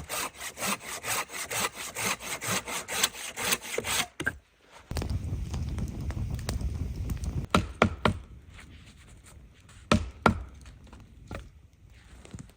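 Hand saw cutting through wood in quick, even strokes, about four a second, stopping about four seconds in. A low rumble follows, then a few sharp knocks.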